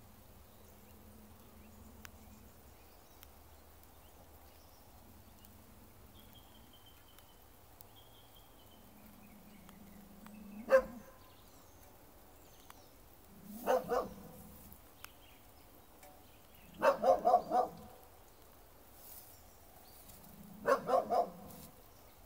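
American Staffordshire terrier growling low and breaking into short barks: a single bark, then a pair, a quick run of about five, and three more near the end. It is the warning of a territorial, aggressive dog at a stranger on its own ground.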